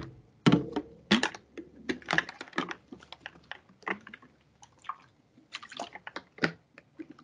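Computer keyboard keys tapped in an irregular run of sharp clicks, typing a division into a calculator.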